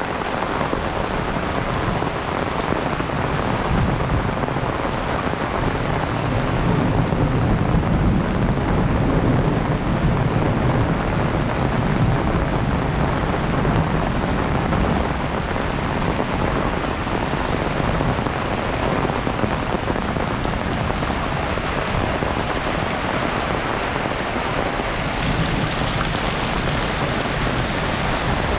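Heavy rain pouring steadily, with a low rumble of thunder for several seconds in the first half.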